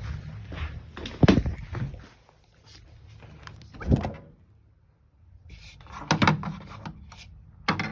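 A refrigerator door being opened and shut, with several knocks and thuds spread over a few seconds.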